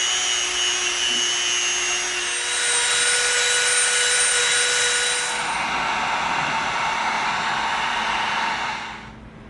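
Dremel rotary tool running as it shapes EVA foam, a steady whine over a grinding hiss that shifts in pitch a couple of times as the load changes; it cuts off near the end.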